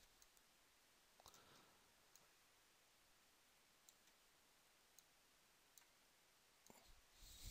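Near silence with a few faint computer mouse clicks scattered through, and a soft rustle near the end.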